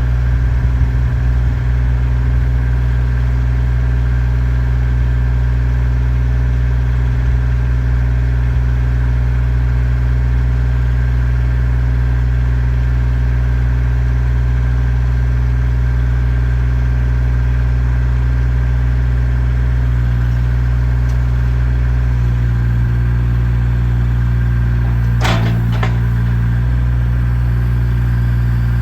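2015 JCB 8018 mini excavator's diesel engine running steadily at idle. Its note shifts slightly a little past twenty seconds in, and a short double clank comes a few seconds later.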